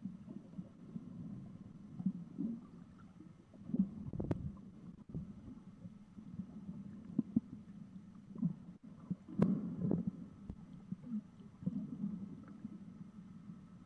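Muffled underwater rumbling and sloshing heard through an action camera's waterproof housing, swelling and fading unevenly, with a few soft knocks, the clearest about four seconds in and about nine and a half seconds in.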